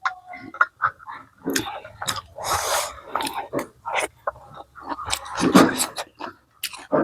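Close-miked eating of chicken curry and corn rice: chewing with many short wet clicks and smacks, and a longer hissy mouth sound about two and a half seconds in.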